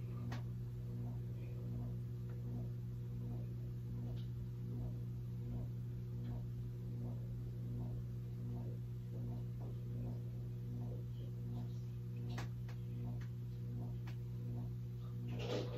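Steady low hum with a faint, regular ticking about twice a second, and a couple of light clicks near the end.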